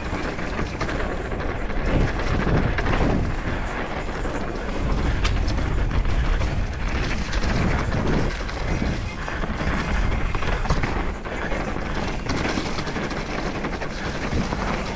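Trek Slash full-suspension mountain bike riding a rough dirt trail: steady tyre rumble with rattling and scattered knocks from the bike over the bumps.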